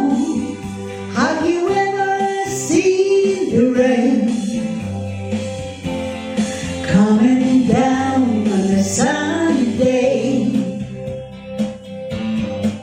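A voice singing over guitar accompaniment, the singing dropping out about ten seconds in and leaving the guitar.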